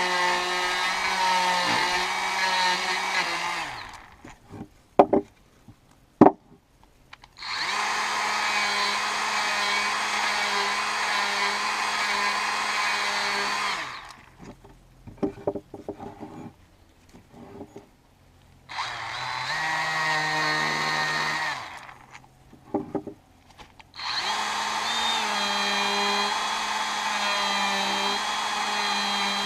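DeWalt 18 V cordless brushless die grinder with a spherical burr grinding into a wood offcut, run in four bursts of several seconds each with a steady whine and stopped between them. A few sharp knocks fall in the pauses.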